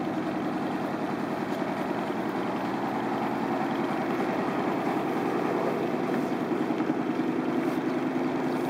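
Riverboat engine running steadily with an even, fast throb.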